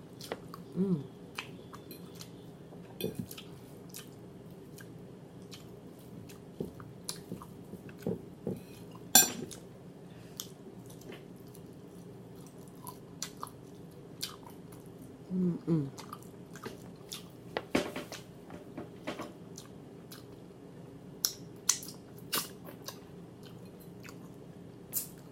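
A person chewing ramen noodles close to the microphone, with scattered sharp clicks of utensils against dishes. A faint steady hum runs underneath.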